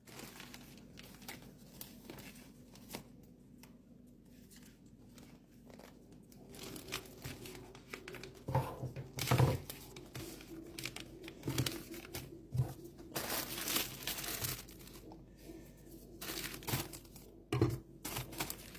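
Plastic packaging or a shopping bag crinkling and rustling as groceries are handled, with a few duller knocks of items set down on a table.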